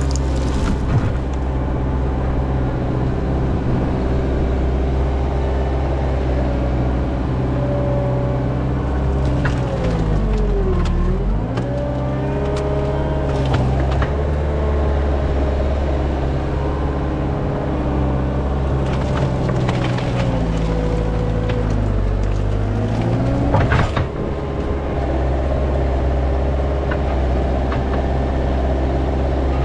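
Heavy-equipment diesel engine working hard while pushing a brush pile; its speed sags twice under load and picks back up. Branches and brush snap and crack now and then.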